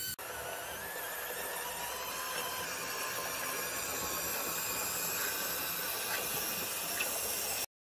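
3D-printed RC model KV-1 tank driving: its small electric drive motors and gearbox give a steady high whine over a hissing rattle, with a few light clicks. The sound stops abruptly just before the end.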